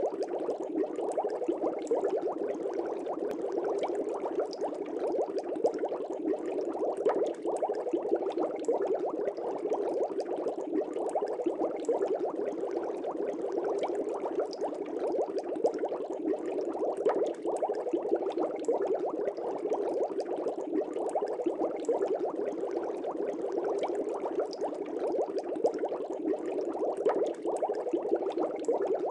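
Steady bubbling water, a dense unbroken stream of small pops and gurgles: the sound of aquarium air bubbles.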